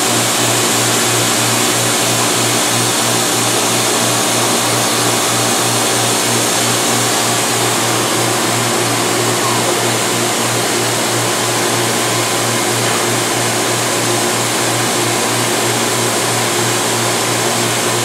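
Studer S145 CNC cylindrical grinder running: a steady mechanical hum and hiss with a low, regularly pulsing drone underneath, unchanging as the wheel head moves.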